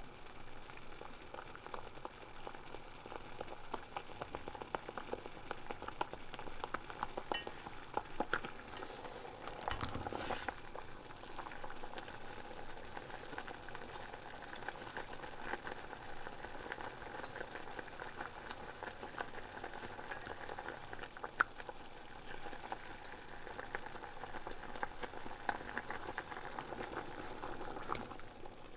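Water boiling in a stainless steel pot with a bagel poaching in it: steady bubbling with many small pops.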